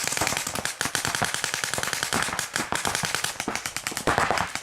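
Several paintball markers firing in rapid, overlapping strings of shots, many a second.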